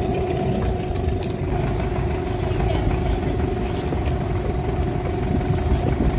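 Small boat's outboard motor idling steadily with an even, unchanging hum.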